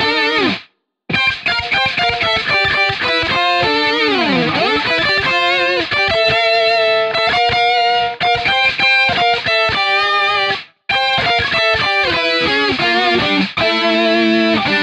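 Instrumental electric guitar music: a melodic lead of quick picked notes, with a slide down in pitch about four seconds in. The music cuts to silence briefly near the start and again about eleven seconds in.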